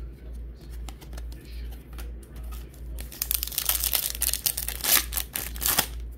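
Foil wrapper of a Topps baseball card pack crinkling and tearing as it is opened, a dense crackle starting about halfway through. Before it, faint clicks of cards being handled, over a steady low hum.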